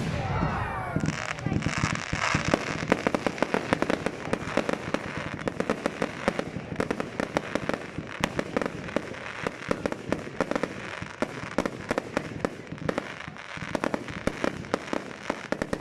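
Fireworks at a display crackling, a rapid, dense run of sharp pops many times a second that thins a little near the end.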